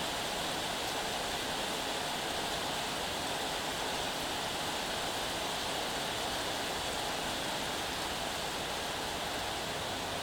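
Heavy rain pouring down in a thunderstorm downpour, a steady, even hiss with no thunderclap.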